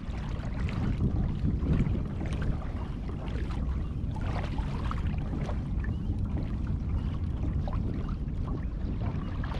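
Water sloshing and splashing against the hull of a pedal-driven fishing kayak moving across choppy sea, with a steady low rumble of wind on the microphone.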